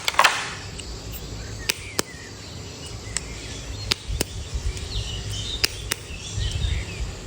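Several scattered sharp clicks and taps over faint steady background noise, with a few faint short chirps.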